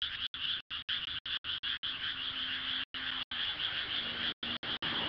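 A chorus of frogs croaking steadily at night. The sound is broken by about a dozen brief dropouts to total silence, typical of a mobile live stream losing audio.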